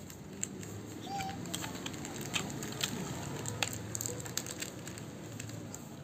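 Scattered small clicks and crackles of plastic alarm parts being handled, over a faint low background rumble.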